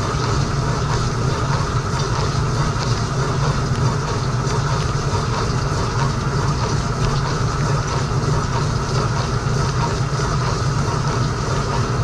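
Frigidaire Gallery dishwasher in its wash cycle, heard from inside the tub: a steady low hum from the circulation pump under the even hiss of water jets from the spray arm spraying against the racks and dishes.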